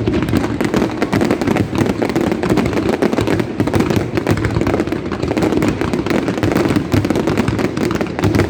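Aerial fireworks going off in a dense, continuous barrage of bangs and crackles, with no pause.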